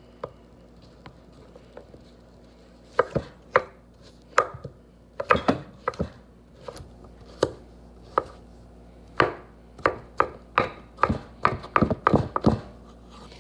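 Kitchen knife chopping avocado on a wooden cutting board: irregular knocks of the blade striking the board. They start about three seconds in and come faster toward the end, several a second.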